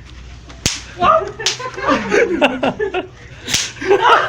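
Two sharp cracks about three seconds apart, with young men's voices in between.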